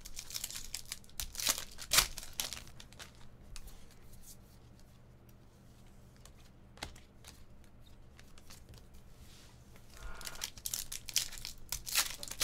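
Foil trading-card pack being torn open and crinkled, with two sharp rips about two seconds in. Quieter handling of the cards follows, with a few faint clicks. Near the end a second foil wrapper crinkles as it is opened.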